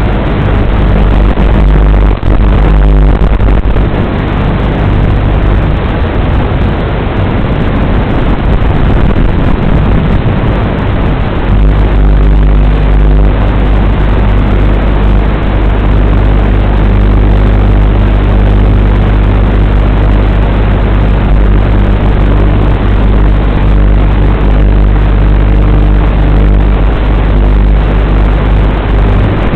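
Loud, steady hiss with low droning hum tones that shift in level about eleven seconds in. This is the running sound of a WLToys 12418 RC car as heard through its onboard camera.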